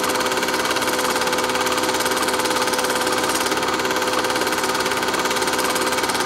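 Steady mechanical whirr with a fast, even clatter, like a small motor-driven machine running continuously.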